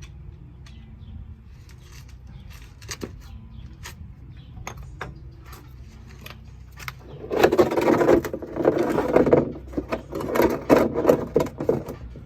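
Hand tools clicking and knocking while a car's oil is being drained. About seven seconds in come three loud spells of rapid rattling and clattering, each a second or two long.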